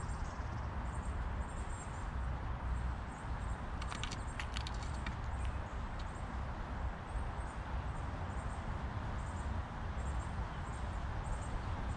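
Steady low outdoor background rumble, with faint high-pitched chirps repeating about once a second and a short run of sharp clicks about four seconds in.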